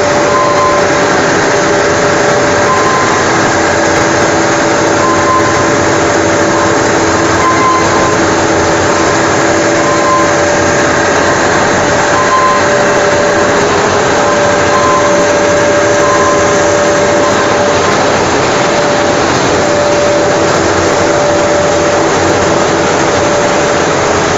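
Pet food production line machinery running: a loud, steady mechanical din with several steady hums, and a short higher tone that recurs every second or two.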